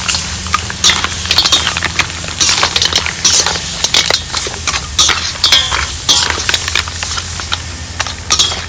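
Mussels in their shells being stir-fried with holy basil in a hot pan: a steady sizzle with the spatula scraping and the shells clinking at irregular moments throughout.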